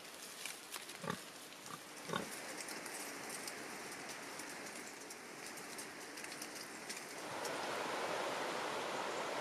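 A few short animal grunts in the first couple of seconds, the strongest about two seconds in, over a faint hiss with small scattered clicks. About seven seconds in, a louder, steady rushing noise takes over.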